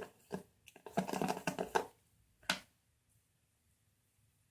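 Hands squeezing and working homemade body-wash-and-salt slime, giving a run of crackling, squelchy clicks and then one sharp click before it goes quiet.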